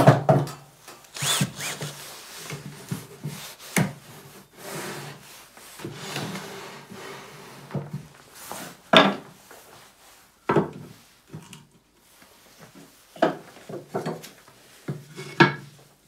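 Wooden boards of a bird box being handled and knocked together on a wooden workbench, with a cordless drill running in short spells as screws are driven. Sharp knocks of wood on wood come every few seconds, the loudest about nine seconds in.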